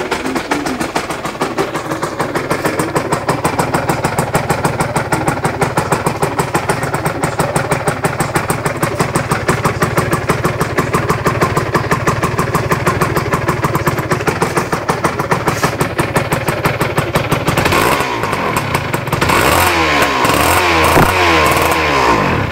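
Aprilia RS 125's single-cylinder two-stroke engine idling with an even, rapid pulse. About eighteen seconds in, the throttle is blipped, the pitch rising and falling and the sound getting louder, until it cuts off suddenly.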